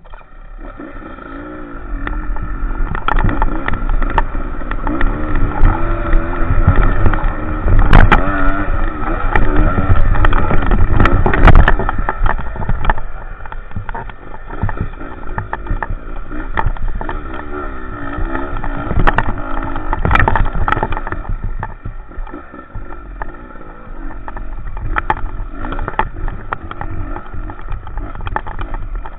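Enduro motorcycle engine pulling hard on an uphill climb, its revs rising and falling, with frequent sharp knocks and rattles from the rough ride. It is loudest in the first half, then settles a little.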